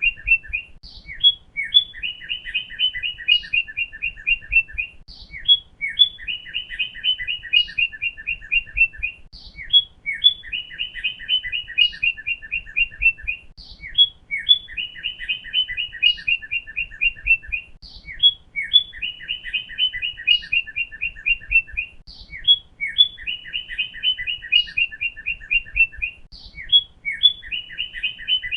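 Northern cardinal song: a phrase of rapid, repeated whistled notes, with a few higher slurred notes between phrases. The same phrase repeats about every three seconds.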